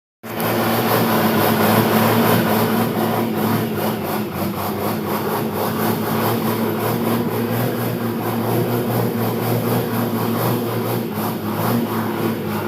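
A motor vehicle's engine running at a steady speed with a low, even hum over road and wind noise. It cuts in abruptly right at the start.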